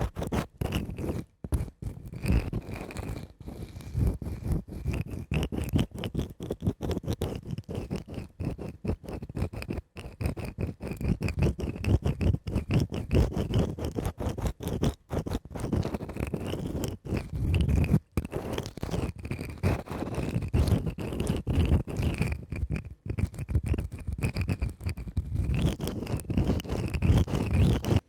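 Fast scratching and tapping on a cork mat and wooden block, with dense rapid strokes that stop for a moment a few times.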